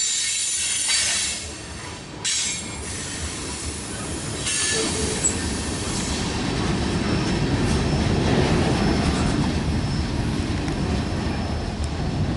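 Freight cars rolling past, their wheels squealing in high, on-and-off screeches over the first few seconds, then giving way to a steady lower rumble as the last cars go by.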